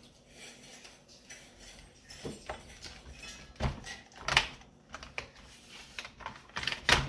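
Hard plastic parts of a Dyson DC50 vacuum knocking and clicking as the rear pipe is pushed back into the ball housing: a string of irregular taps, the loudest about four and a half seconds in and just before the end.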